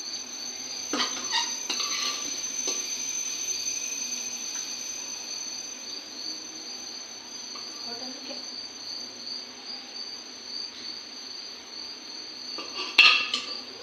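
Crickets chirping steadily in a fast even trill, under sharp clinks of a steel ladle against stainless-steel plates as chole is spooned over samosa pieces, with a few clinks a second or two in and the loudest clatter near the end.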